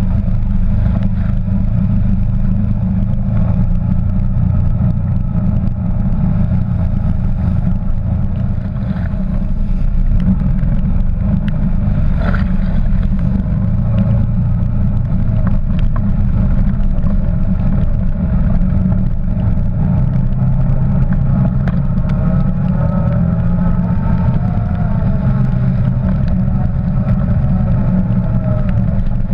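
Can-Am quad bike's engine running under way on a wet, rocky trail: a dense, steady low rumble with scattered knocks from the ride. The engine's pitch rises and falls in the second half.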